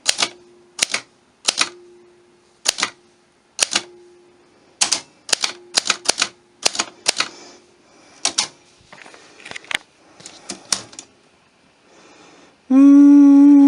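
Montgomery Ward Signature 100 typewriter being typed on: about twenty sharp keystrikes at an uneven, unhurried pace, stopping about eleven seconds in. Near the end a person hums a loud, steady "hmm".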